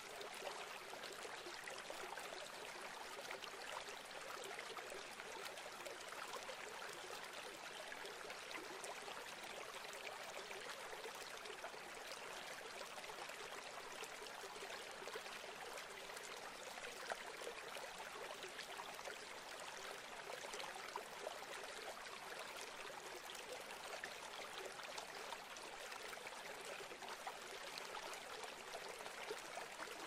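Faint, steady splashing and trickling of water, with many small pops: a crowd of fish churning the lake surface as they feed.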